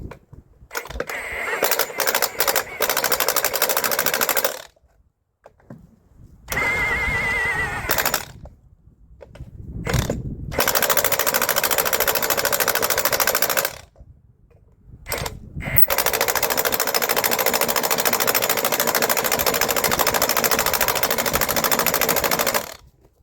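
Impact wrench hammering on the semi's steer-wheel lug nuts in four long bursts with short pauses between, one short burst rising to a whine as the wrench spins freely.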